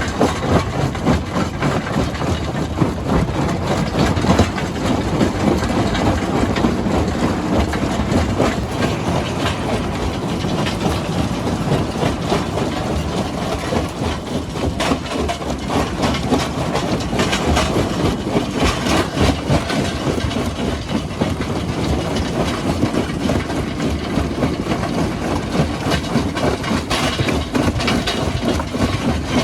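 Heavy rock-handling machinery at work: a continuous clatter and knocking of stone over a steady diesel engine rumble.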